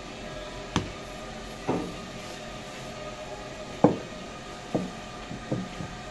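Irregular knocks and clatters of objects being handled and set down, about seven in all, the loudest about four seconds in, over a steady mechanical hum of kitchen equipment.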